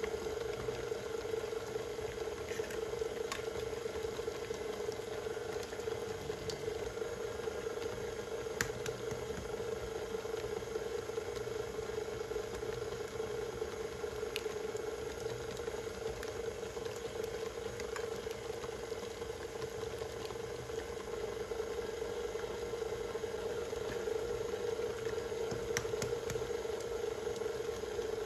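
KitchenAid stand mixer motor running steadily with an even hum, its beater working thick choux pastry dough as eggs go in, with a few faint clicks.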